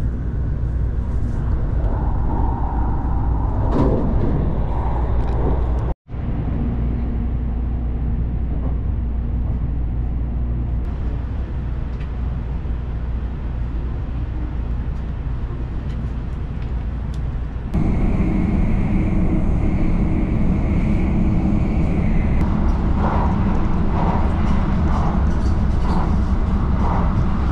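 Cabin running noise of a Shinkansen bullet train: a steady low rumble with a hiss over it. It cuts out for an instant about six seconds in, and gets louder and rougher at about eighteen seconds.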